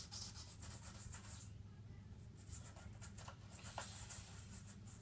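Brush scrubbing the leather of an American football in quick back-and-forth strokes: a run of strokes for about a second and a half, a short pause, then more strokes.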